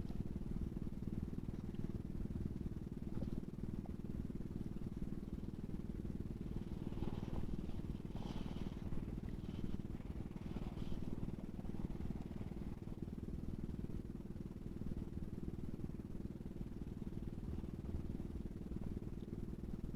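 A steady low motor drone, with a few faint higher scraping sounds in the middle.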